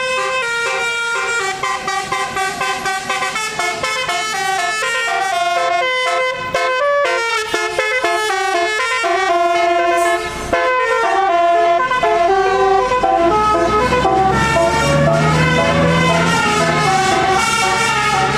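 Telolet basuri musical bus horn playing a fast melody, several horn tones stepping from note to note. A low rumble runs underneath in the second half.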